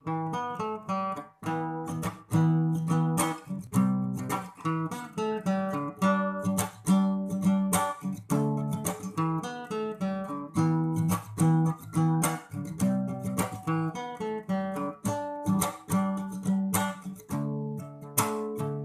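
Acoustic guitar strumming chords in a steady rhythm, with no voice yet.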